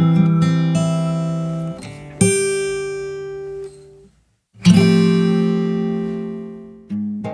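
Background music on acoustic guitar: strummed chords left to ring and fade, with a brief stop about four seconds in before a loud new chord rings out.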